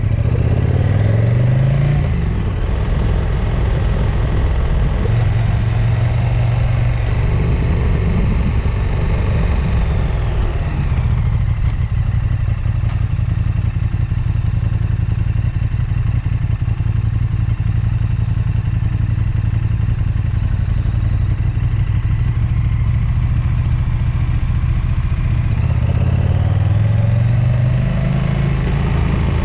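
A vehicle's engine running while it drives downhill. The revs climb over the first couple of seconds and again near the end, with steadier running in between.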